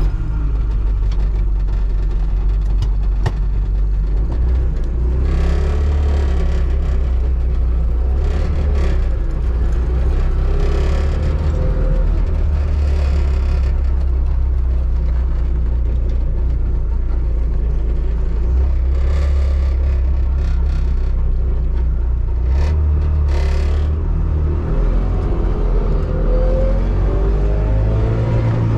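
Trabant 601S's air-cooled two-stroke two-cylinder engine running under way, a steady low rumble, rising in pitch near the end as it accelerates.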